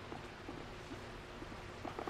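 A lull in a guinea pig's purring while it is stroked: only a faint low hum and a few soft ticks, with a brief sound near the end as the purring starts again.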